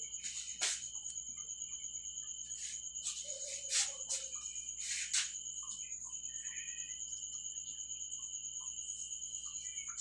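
Insects trilling steadily in a high, evenly pulsing drone, with a few sharp clicks; the loudest click comes about four seconds in.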